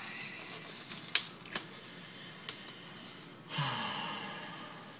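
Disposable gloves being pulled on: three sharp snaps as the glove material is tugged over the hands, then a softer noise lasting about a second.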